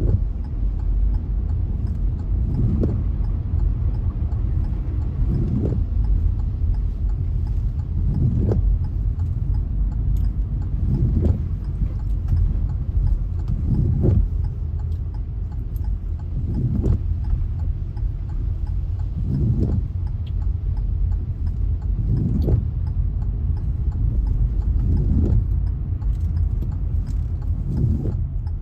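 Steady low rumble of a car driving in heavy rain, with a windscreen wiper sweep recurring regularly about every three seconds.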